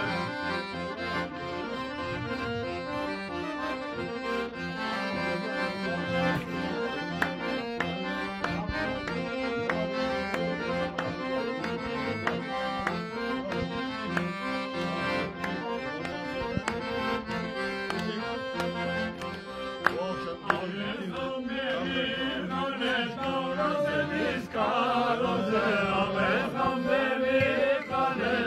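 Piano accordion playing a folk melody over held chords, with voices joining in song in the last several seconds.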